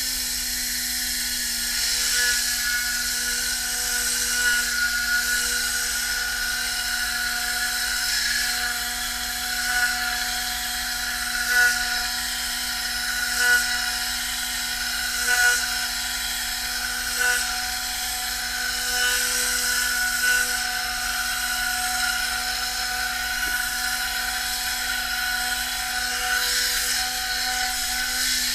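Tornador air-powered cleaning gun running continuously: compressed air hisses through its whirling tube with a steady whine. It swells louder every couple of seconds.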